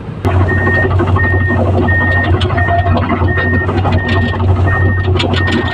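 An excavator's diesel engine running steadily while its warning alarm beeps eight times at an even pace, about one and a half beeps a second, over some metallic knocks. The sound starts abruptly just after the beginning.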